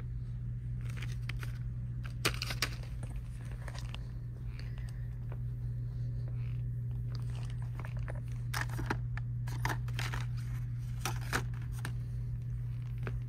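Plastic blister packaging of phone accessories crinkling and clicking as it is handled, with a sharp click about two seconds in and a run of crackles in the second half, over a steady low hum.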